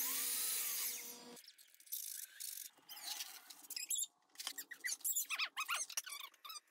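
A DeWalt sliding compound miter saw running for about a second and a half, then cutting off. A rapid jumble of short high squeaks and clicks follows, the sound of sped-up timelapse workshop work.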